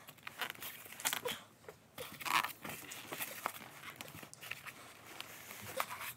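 Foam packing blocks and plastic wrapping scraping, rubbing and crinkling as they are worked loose from around a boxed full-length mirror. The sound comes in irregular scratchy bursts, loudest about a second in and again just after two seconds.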